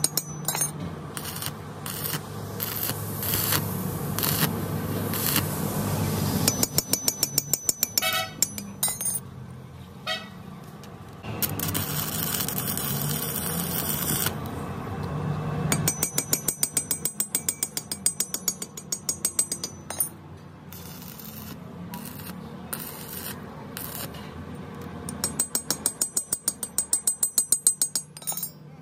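Stick arc welding on a steel gear tooth: the arc crackles and sputters steadily for a few seconds midway. Several runs of rapid sharp metallic taps, about four a second, come before and after it.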